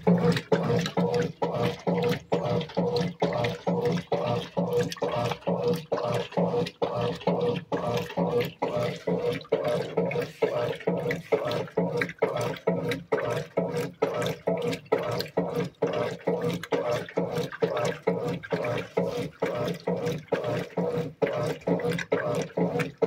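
Brastemp Mondial washing machine agitating on its wash cycle: a steady motor hum with water sloshing, swelling and dipping about twice a second as the agitator swings back and forth.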